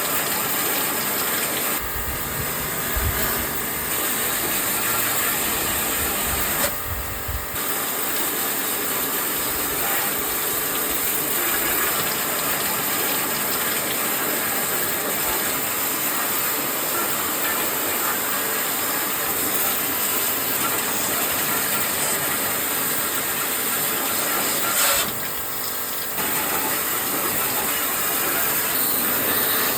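Pressure-washer water jet spraying an air conditioner during cleaning: a steady hiss of spray, eased off briefly about two, seven and twenty-five seconds in.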